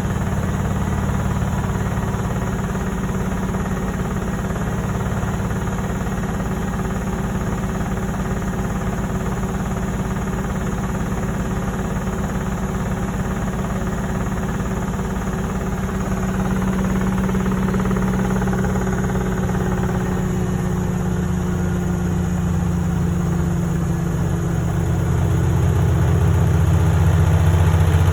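Beko washing machine running with a steady motor hum, in a machine that has a fault keeping it from draining. In the last third the hum grows louder and its pitch slowly falls.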